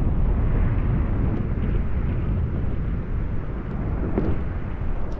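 Wind buffeting the microphone of a handheld GoPro action camera: a loud, uneven low rumble with no steady tone.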